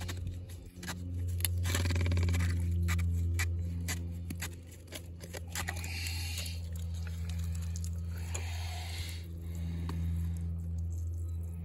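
Hands handling plastic irrigation valve parts in a valve box: clusters of small clicks and scrapes, thickest in the first few seconds and sparser later. A steady low hum underlies them throughout.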